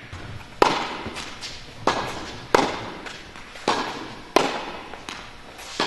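A tennis rally: about six sharp ball strikes off rackets and the hard court, each ringing out in the echo of the indoor tennis hall.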